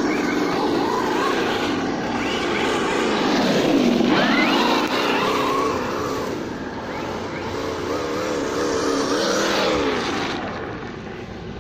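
Simulated engine sound from a Sense ESS One Plus sound module on a Losi Baja Rey RC trophy truck, rising and falling in pitch with the throttle, with a hiss of tyres on gravel. It drops sharply in pitch about four seconds in, wavers near the end and then fades as the truck drives away.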